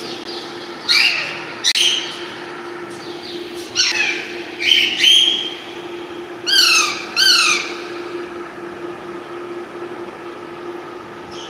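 Parrot squawking: about seven short, harsh calls, several in quick pairs, each falling in pitch, through the first eight seconds, then it goes quiet. A steady low hum runs underneath.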